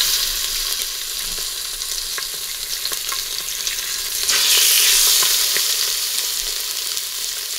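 Chicken thighs searing skin side down in hot vegetable oil in an Instant Pot's stainless steel inner pot on high sauté, giving a steady sizzle. The sizzle swells louder about four seconds in, as another thigh is laid in.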